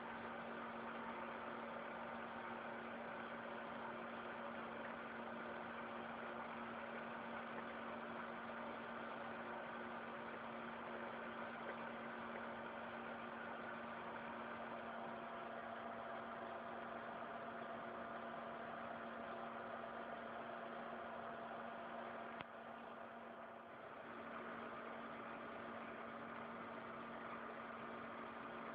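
Industrial three-axis CNC milling machine running with a steady machine hum and a few held tones. One tone shifts about halfway through, and the sound dips briefly near the end.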